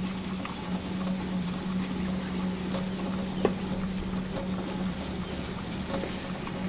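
Aerial tram car's carriage running along its track ropes at travel speed: a steady low hum with a faint high whine and scattered light clicks.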